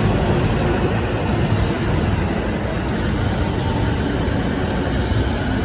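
E233-series electric commuter train moving past the platform, with steady noise from its wheels on the rails.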